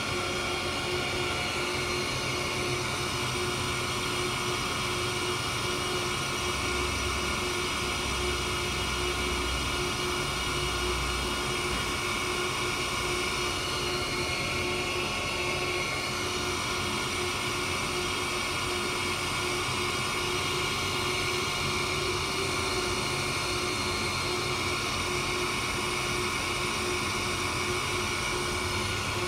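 Reid 2-C surface grinder running with its grinding wheel spinning free over the chuck: a steady machine hum with several constant high tones.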